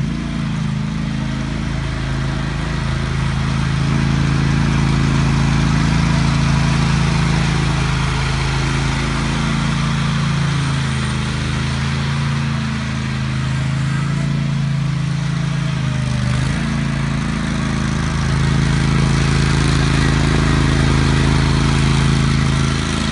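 A 2015 Country Clipper lawn mower's engine running steadily at a constant speed, with slight dips in level about twelve and sixteen seconds in.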